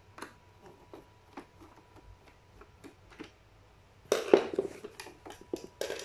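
Hard plastic clicks and knocks as a battery is handled and set into a Roomba robot vacuum's battery compartment, faint and scattered at first, then a louder cluster of knocks about four seconds in as it goes into place.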